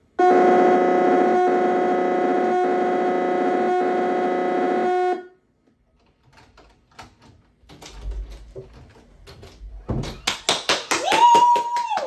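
The VHS 'moaning' sound played through a TV speaker at full volume: a loud, steady droning tone with many overtones that cuts off abruptly after about five seconds. Then the VCR's mechanism clicks, and near the end a whine rises in pitch and holds as the VCR starts rewinding the tape.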